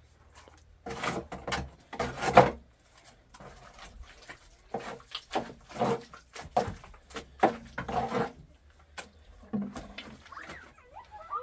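Irregular knocks and scrapes, the loudest a few thumps about two seconds in.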